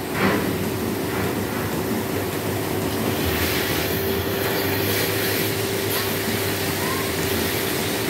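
Milking-shed machinery running steadily: a continuous rumble with a constant hum over it.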